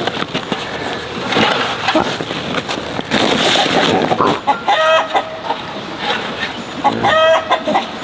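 Chickens calling twice in the second half, short pitched calls, over the continual scrape and rustle of a metal scoop digging dry dirt and manure and tipping it into a woven plastic sack.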